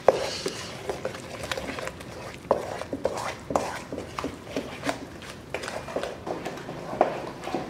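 Oatmeal pancake batter being stirred by hand in a stainless steel mixing bowl: a utensil scraping through the thick mix, with irregular sharp knocks against the metal.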